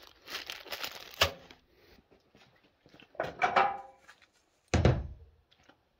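Plastic packaging crinkling as a bag of screws is opened, with a sharp click about a second in. Later a short pitched scrape, then a heavy thump near the end.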